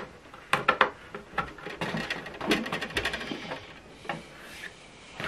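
Plastic clicks and knocks as a power cable plug is pushed into the socket on the back of an HP DeskJet 3750 printer and the printer is handled: a few sharp clicks just after the start, then a quick rattling run of clicks around the middle.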